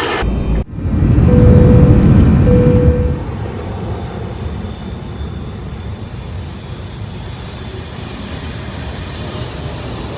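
Jet engines of a Boeing 777-300ER landing: a loud low rumble with a steady engine tone for the first few seconds, then easing into a steadier, quieter roar.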